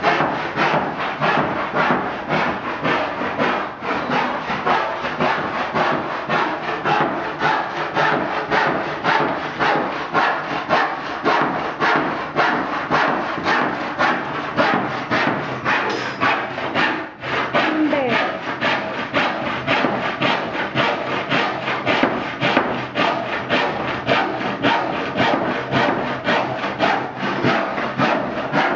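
Hand saw cutting a wooden board with steady back-and-forth strokes, about two a second, with one short pause about two-thirds of the way through.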